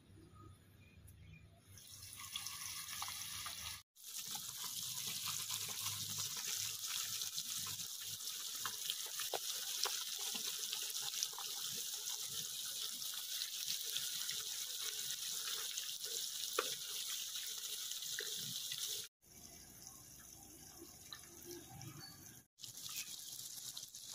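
Water running steadily from a tap and splashing: a dense, even hiss that stops suddenly a few seconds before the end, leaving only quieter background sounds.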